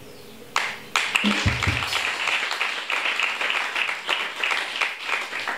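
Congregation applauding, many hands clapping in a dense, steady stream that breaks out about half a second in after a brief quiet.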